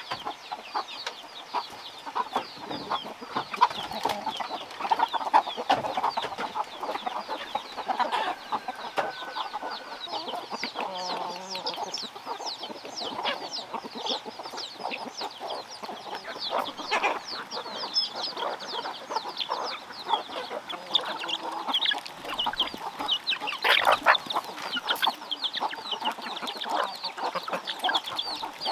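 A flock of free-range chickens clucking and calling as they crowd round to be fed corn, with a dense stream of quick, high peeps throughout and a few louder squawks, the loudest about three quarters of the way through.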